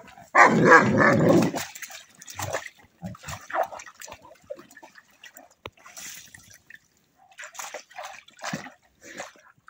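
Polish Tatra Sheepdog barking loudly for about a second near the start, then scattered splashing and sloshing as it paws and wades through shallow pond water.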